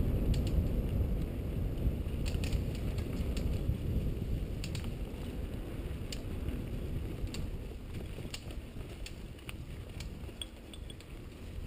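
Mountain bike rolling fast down a leaf-covered dirt singletrack: a steady low rumble of tyres and rushing air, with scattered sharp clicks and rattles from the bike. The rumble eases off over the last few seconds.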